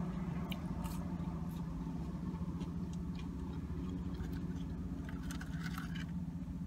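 A steady low hum inside a parked car, with scattered soft clicks and crackles of chewing fries.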